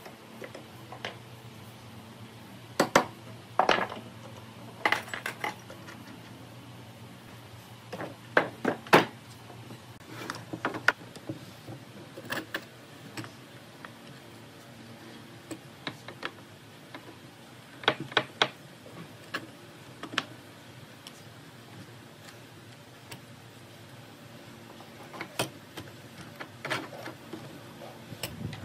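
Wooden frame rails and long steel threaded rods being handled and set down on a wooden workbench: scattered knocks of wood on wood and metallic clinks, coming in small clusters, over a steady low hum.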